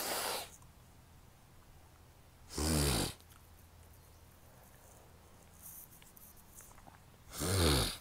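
A woman sneezing twice, about three seconds in and again near the end, each a short loud voiced burst, with a breathy burst right at the start; allergic sneezes set off by blooming sweet peas.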